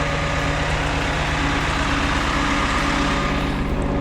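Shuttle bus engine idling nearby, a steady low hum.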